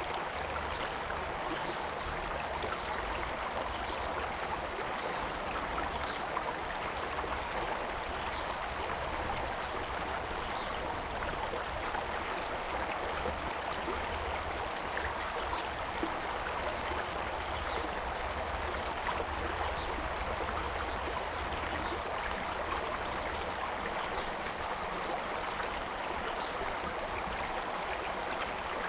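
A stream flowing, a steady, unbroken rush of running water.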